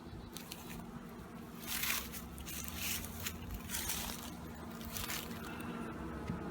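Wooden bee hive frames being pried and scraped loose, giving a string of short crackling scrapes with the loudest about two seconds in. Under them runs the steady hum of honey bees.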